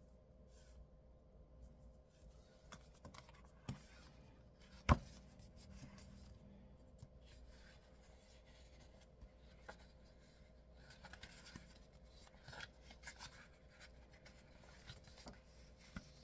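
Quiet hand handling of planner pages and stickers: faint rubbing and rustling with scattered small taps, and one sharp click about five seconds in. A faint steady hum runs underneath.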